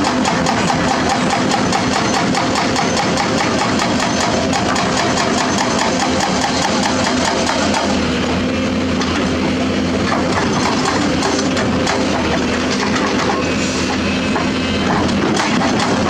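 Diesel engine of a Hyundai HX300SL excavator running steadily while it digs and loads rock, a constant low drone with a fast, even clatter.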